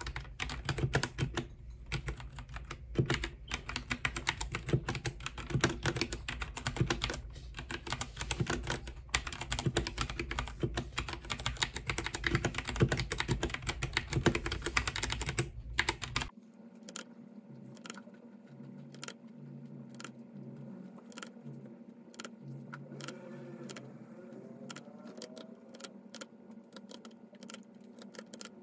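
Typing on a Royal Kludge 68-key mechanical keyboard with brown switches: rapid, dense key clacking. About sixteen seconds in it cuts off abruptly and gives way to slower, quieter single keypresses over a faint steady hum.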